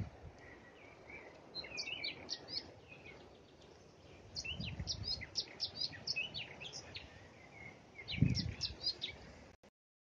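Several songbirds singing in spring woodland, with quick runs of short, high chirping notes in three spells. Two brief low rumbles come about halfway through and near the end, and the sound cuts off just before the end.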